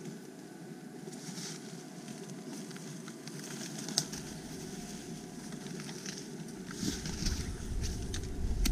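A hiker walking a path through leafy undergrowth: footsteps, and crackling and rustling as leaves and twigs brush past, with a sharp click about four seconds in. Wind rumbles on the microphone over the last couple of seconds.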